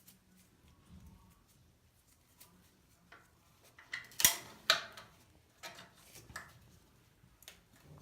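Metal tools and dryer parts clinking and knocking as the dryer is worked on: scattered light clicks, then two sharp metallic knocks about half a second apart around the middle, followed by a few softer clinks.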